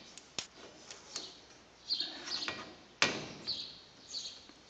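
Handling clatter of a greenhouse window frame being worked into its roof ridge slot: a few light clicks and knocks, with short high squeaks between them and the loudest knock about three seconds in.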